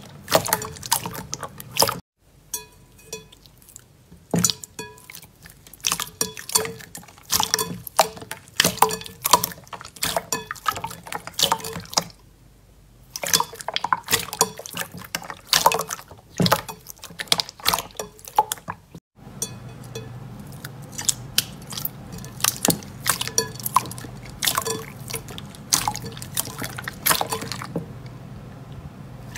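Clear slime in a glass bowl being pressed and squeezed by hand: wet squelching with many sharp, irregular pops and clicks, broken by two brief pauses.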